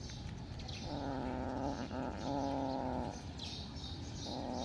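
A kitten giving long, drawn-out, steady-pitched calls while wrestling with another kitten. There are three calls: two back to back starting about a second in, and a shorter one near the end.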